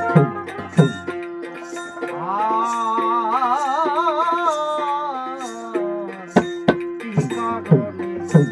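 Baul folk music. A voice holds one long wavering note over a steady drone. Percussion strokes that slide down in pitch come near the start and again several times near the end.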